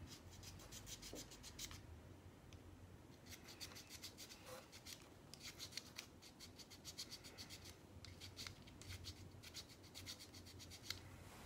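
Small hand file rasping on a part of a VFC gas blowback magazine, faint quick back-and-forth strokes in several short runs with brief pauses: the part is being filed thinner to stop a gas leak at the magazine-catch slot.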